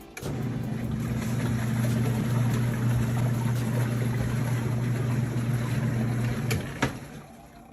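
ZENY twin-tub portable washing machine's motor running with a steady hum over a rushing noise, then stopping abruptly with a couple of clicks about six and a half seconds in.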